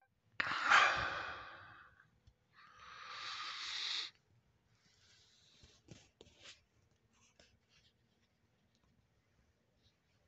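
A person breathing heavily: a long breath out that starts suddenly and fades, then a breath in that builds for about a second and stops. After that come a few faint clicks and rustles.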